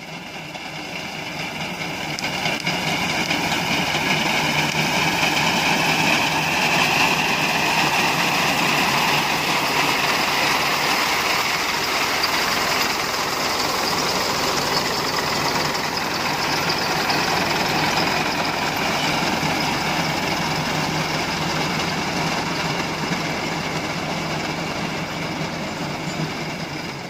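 Tractor engine running steadily while driving a tractor-mounted reaper through wheat, fading in over the first couple of seconds.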